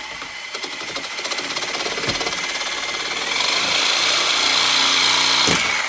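Reciprocating saw (Sawzall) running and cutting through a car's steel door hinge pin, a fast, even buzzing chatter. It gets louder and higher-pitched about three seconds in, then stops sharply near the end.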